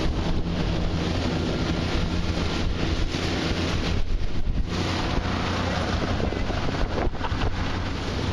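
Small tiller outboard motor on a Gheenoe skiff running steadily at speed, a low drone under heavy wind buffeting on the microphone and rushing water.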